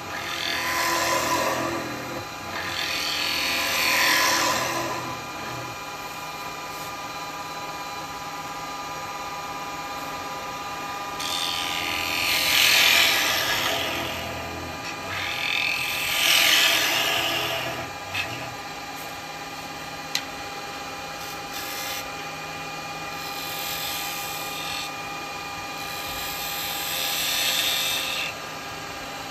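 Wood lathe running with a steady hum while a carbide turning tool cuts into the spinning bowl blank in about six passes, each cut swelling into a hiss and fading again. Two brief sharp ticks come midway.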